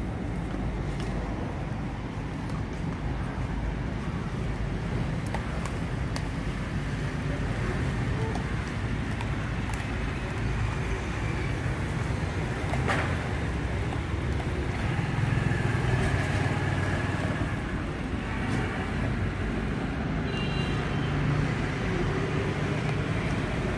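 Steady road traffic noise: motor vehicle engines running, with one sharp click about halfway through.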